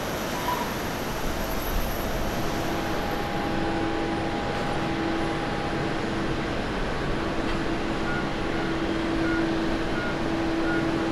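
Jet airliner engines heard from a distance: a steady broad roar. After a cut about three seconds in, a Boeing 787-9 on final approach brings in a steady low hum and a higher tone over the roar.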